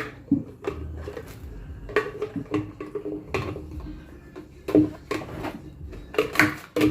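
Plastic Nutribullet cups and lids knocking and clattering together as they are handled, in a string of irregular knocks and clicks.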